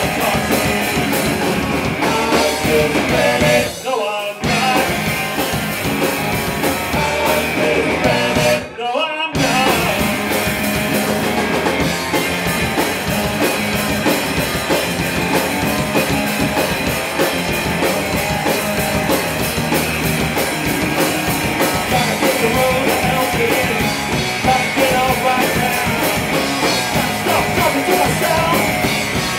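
Live rock band playing loud: electric guitars and a drum kit, with the music breaking off briefly twice, about four and nine seconds in, before driving on.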